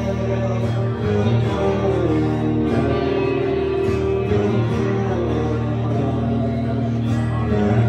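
Live guitar music, a song played through with sustained, ringing chords and some singing.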